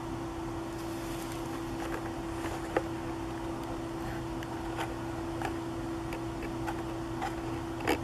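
A steady low hum over background hiss, with a scattered handful of short, sharp ticks from about three seconds in.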